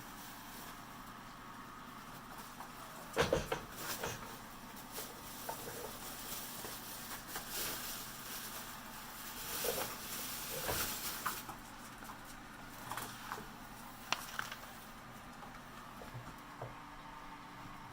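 Scattered small knocks, scrapes and rustles over a steady background hum, the loudest knock about three seconds in.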